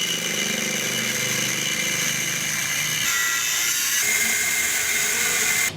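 A power tool running steadily with a high whine. Its pitch shifts about three and four seconds in, and it cuts off suddenly near the end.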